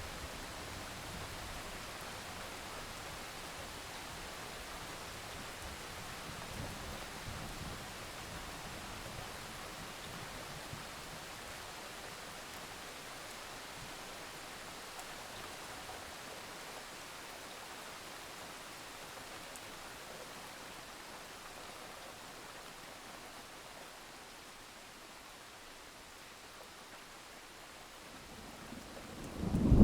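Steady rain, an even hiss that slowly grows quieter. Near the end a low rumble of thunder starts to build.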